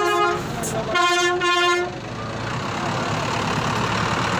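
Truck horn sounding in two blasts: the first cuts off about half a second in, and a second blast lasts about a second. After that there is a steady noisy din.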